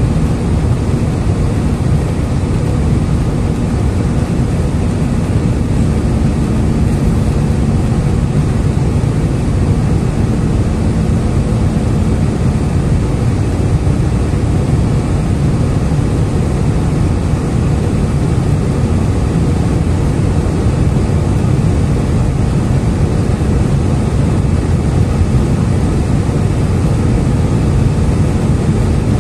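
Jet airliner engine and airflow noise heard inside the cabin beside the engine in flight: a steady, deep roar with a faint steady hum.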